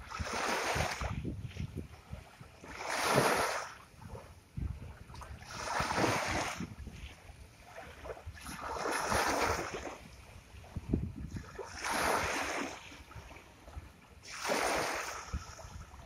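Sea waves washing onto a shore, about six in a row: each one swells up as a rushing hiss and fades away, one every two and a half to three seconds.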